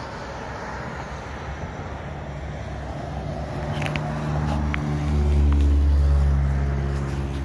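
A motor vehicle's engine running with a steady low hum, swelling louder about four seconds in and easing off near the end, with a few faint clicks.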